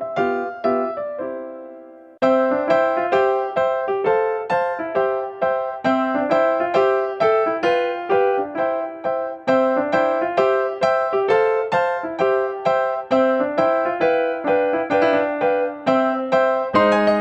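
Background music led by electric piano playing repeated chords in a steady rhythm. It fades out about two seconds in and starts again straight after.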